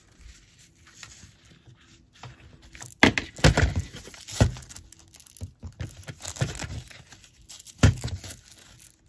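Hook-and-loop (Velcro) strap of a toy wrist morpher being peeled apart and pressed together, with fabric and plastic handling. After a quiet start come several irregular ripping rasps, the loudest about three seconds in and near the end.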